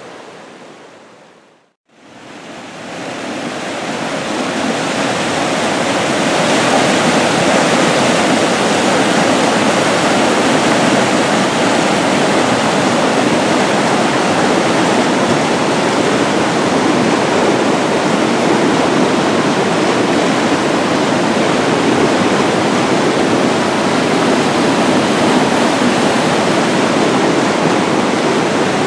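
A brook in flood rushing in a steady whitewater torrent, loud and even throughout. The sound fades out briefly about two seconds in and swells back up over the next few seconds.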